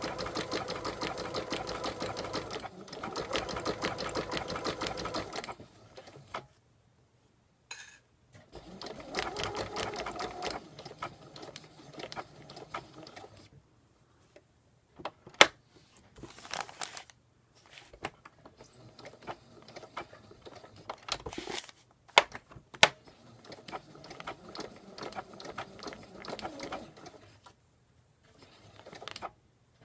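Domestic sewing machine stitching felt appliqué letters onto thin fabric, running in short runs. A steady run stops about five seconds in, then there are shorter start-stop bursts of stitching with a few sharp clicks between them.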